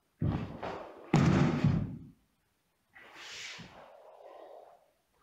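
Karate kata movements on a wooden floor: two sudden thumps with the snap and swish of the gi within the first two seconds, then a softer, longer rustle during a slow open-hand technique.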